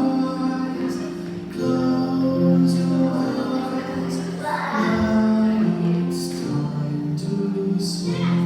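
Music with singing: a song of held notes that move from pitch to pitch.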